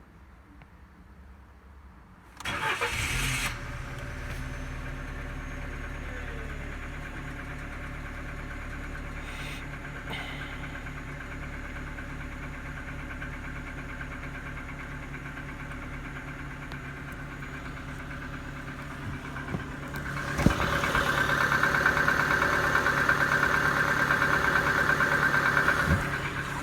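2007 Ford Focus 1.6 petrol engine cranking briefly and catching about two seconds in, then idling steadily. It runs louder for about five seconds from around twenty seconds in, then drops back just before the end. The car has a hard-starting fault in warm weather and starts only with the accelerator pressed.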